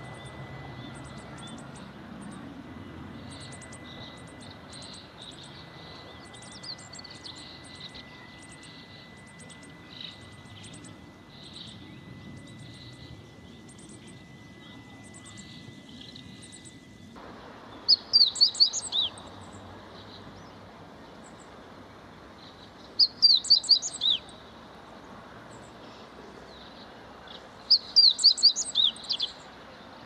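Meadow bunting song: three loud, short phrases of quick, high, falling notes, about five seconds apart, in the second half. Before them comes a long run of faint, thin, high call notes from the buntings.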